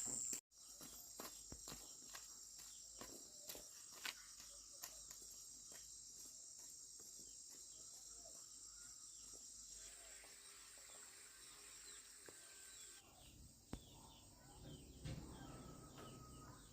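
Faint, steady high-pitched chirring of insects such as crickets, with scattered light clicks.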